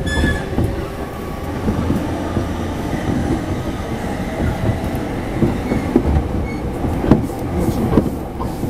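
E231-500 series commuter train running, heard from inside the passenger car: a steady rumble of wheels on rail with occasional sharp clacks over rail joints, two of them louder near the end.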